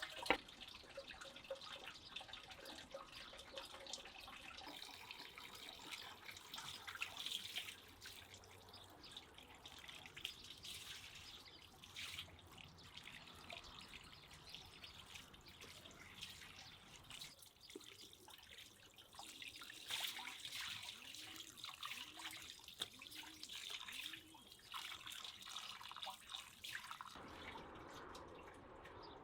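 Faint water from a tap running and dripping into a sink, with scattered small clicks and knocks.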